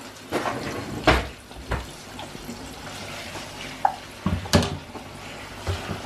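Chopped red onion sizzling in a small saucepan on the hob, a steady hiss, with a few sharp knocks of the wooden spoon and added vegetables against the pan.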